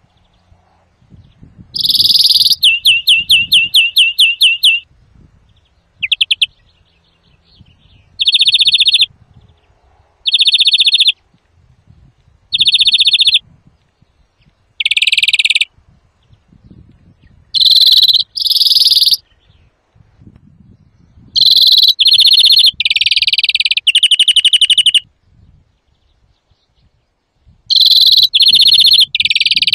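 European greenfinch song, loud: short trilled phrases of under a second each, repeated with pauses of about a second between them. About two seconds in comes a slower run of about four notes a second, and near the end several longer phrases follow one another without a break.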